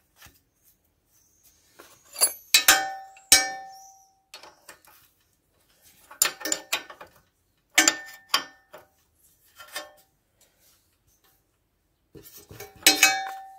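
Metal hand tools clinking and clattering against the engine and each other in four short bursts, each with a brief metallic ring, as the valve covers on a moped's four-stroke engine are done up.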